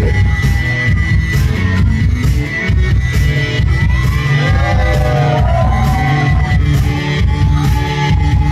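Loud dance music with a heavy, steady bass beat, with voices shouting and whooping over it.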